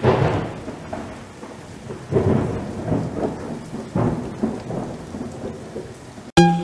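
Thunderstorm sound effect: rumbling thunder over a rain-like hiss, swelling three times about two seconds apart, then cut off abruptly near the end.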